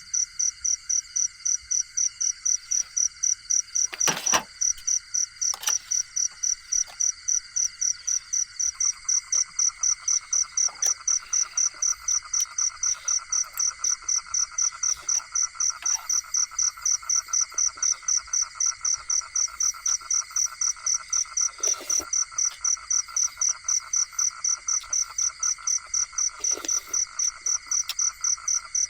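Chorus of insects, crickets among them, chirping in a steady rhythm of about three pulses a second. A second, lower insect or frog chorus joins about a third of the way in, and a few short louder calls break in, the loudest about four seconds in.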